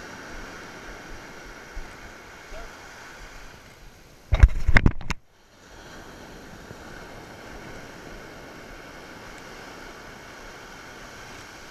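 Ocean surf washing on a sandy beach, with wind. About four seconds in, a loud splashing burst of about a second hits the camera as it dips into the wash, then cuts off suddenly.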